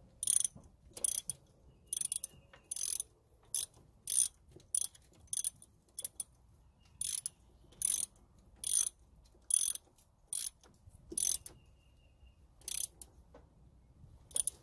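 Socket ratchet wrench clicking in short bursts as it is swung back and forth, tightening the bolts of a power steering pump bracket. The bursts come roughly every half second to second, with a short pause near the middle.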